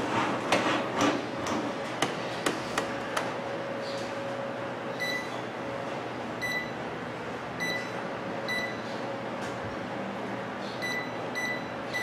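Sharp microwave oven keypad beeping as its buttons are pressed in turn: several short, high beeps, spaced out at first and coming in quicker succession near the end. The beeps show the control panel is responding. A few sharp clicks come in the first few seconds.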